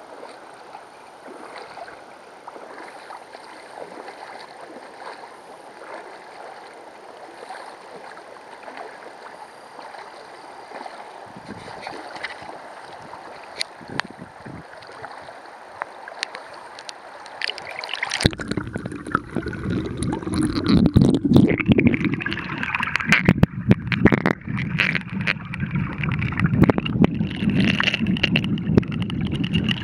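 Shallow river riffle babbling and splashing over stones, a steady rushing hiss. About two-thirds of the way through it turns louder and fuller, with a deeper rush and irregular splashy surges.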